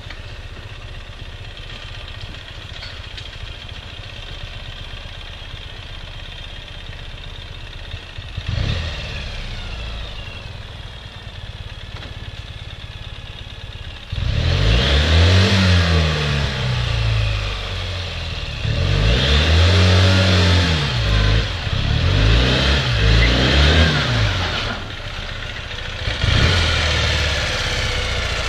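Ural sidecar motorcycle's air-cooled flat-twin engine idling, then revved hard four times in long rising-and-falling surges from about halfway through. The rig is stuck in deep snow, its tub riding on the snow and lifting the wheels, and the revving is the rider trying to drive it out.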